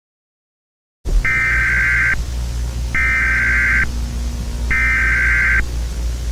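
Emergency Alert System SAME header: three bursts of high digital data tones, each about a second long and about a second apart, over a steady hiss and low hum. They start about a second in, after a moment of silence.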